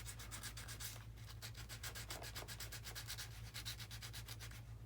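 Faint, fast, even scratching, about ten strokes a second, over a low steady electrical hum.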